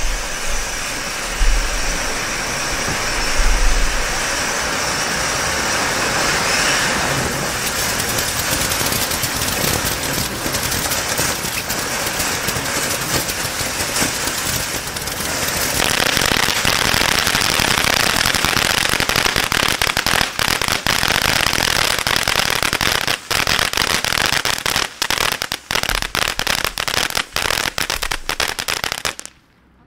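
Bright Star Overload Burger fireworks fountain spraying with a steady hiss, a few low thumps in the first few seconds. About two-thirds through it breaks into its crackle finale, many sharp cracks in quick succession, and it stops abruptly just before the end.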